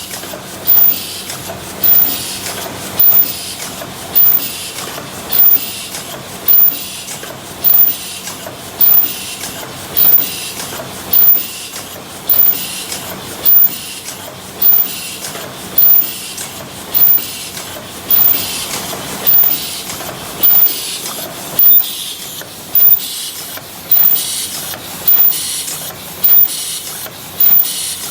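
Paper cup forming machine running steadily, making 22 oz cups. A loud beat comes about once every 1.2 seconds over a continuous mechanical clatter and hiss.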